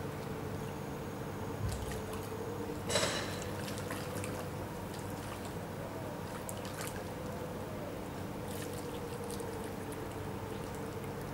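Shallow river water running and trickling as an otter swims and forages in it. There is a short splash about three seconds in and a scatter of small splashes and drips a little later.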